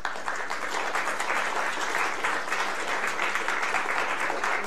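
Audience applauding, the clapping starting abruptly and holding steady.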